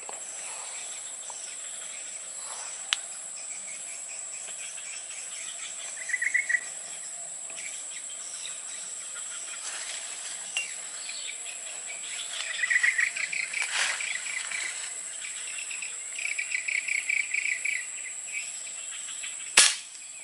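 Tropical forest insects keep up a steady high-pitched drone, broken by three short bursts of rapid chirping trills. A single sharp crack near the end is the loudest sound.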